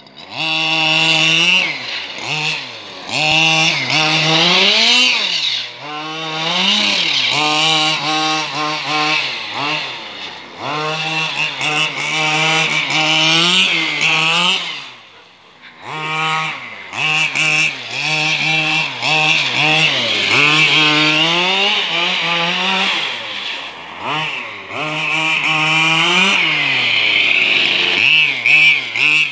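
Remote-control buggy's small petrol engine revving again and again: a buzzing whine that rises and falls in pitch as the car accelerates and slows, dropping off briefly twice.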